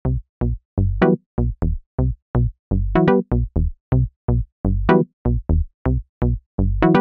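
Electronic synth loop of short bass notes, a few per second with silence between them, and brighter chord stabs about every two seconds. It is playing through a compressor whose ratio is being raised, bringing the quieter bass notes up toward the level of the stabs.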